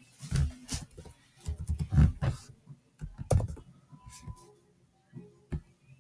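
Computer keyboard being typed in short irregular bursts of keystrokes, then a single mouse click near the end.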